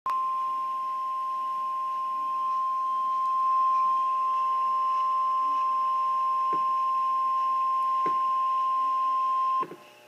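NOAA Weather Radio 1050 Hz warning alarm tone sounding from an Eton Axis weather radio's speaker: one steady high tone of about nine and a half seconds that cuts off suddenly. It signals that an emergency warning broadcast, here a tornado warning, follows.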